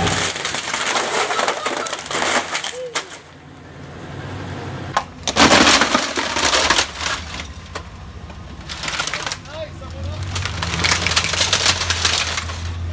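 A Samsung flat-screen TV cracking and crunching under the front tyre of a Chevrolet Silverado 2500 HD pickup, in several bursts of snapping plastic and breaking panel, the loudest about five seconds in.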